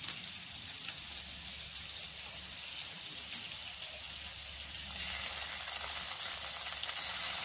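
Chopped onions, already sautéed soft, sizzling in hot oil in a pan: a steady frying hiss that gets louder about five seconds in.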